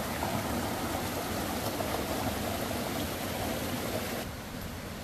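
Steady rush of falling water. It drops abruptly in level about four seconds in.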